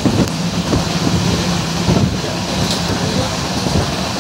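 Intercity Express passenger train running: a steady rumble with a low hum held through the first half and a few irregular knocks from the wheels on the track.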